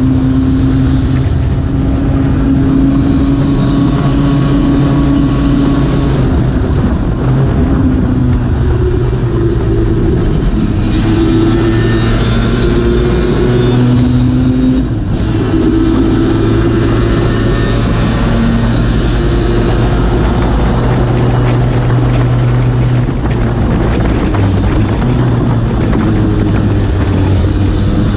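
Lambretta two-stroke racing scooter engine running hard at racing speed, heard on board. Its pitch steps up and down repeatedly through the gears, with a short break in the sound around the middle.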